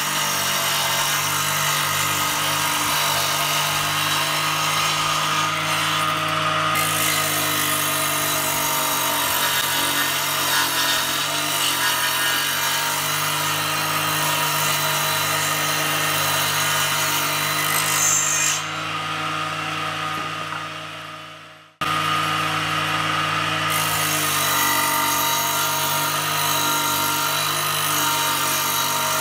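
Belt-driven bench power saw running steadily while a board is fed through it. About two-thirds of the way in, the sound loses its high hiss, fades away, then comes back in abruptly.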